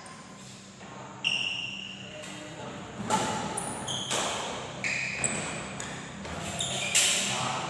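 Badminton doubles rally: about five sharp pops of rackets striking the shuttlecock, a second or two apart, with short squeaks of shoes on the court floor.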